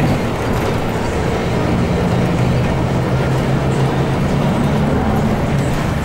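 A bus's engine running under way, a steady drone with road noise, heard from inside the cabin.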